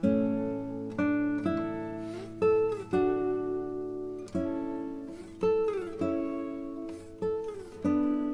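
Background music: a plucked acoustic guitar playing a slow melody, each note struck and left to fade, with a few sliding notes.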